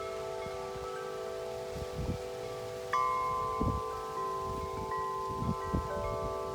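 Wind chime ringing in the wind: several long, steady tones hanging on, with a fresh, louder strike about three seconds in and lighter ones near the end. Gusts of wind rumble on the microphone now and then.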